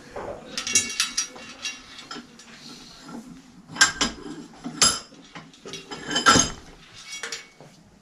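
Small steel parts of a Sachs Maillard freewheel clinking and tapping against the hub and tool, with a few sharp, ringing metal strikes about four, five and six seconds in.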